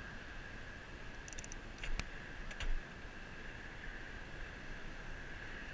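Bicycle riding noise on a handlebar-mounted action camera: a steady hiss of rolling and distant road traffic, a quick run of light ticks a little over a second in, and two sharp knocks about two and two and a half seconds in, the second the loudest.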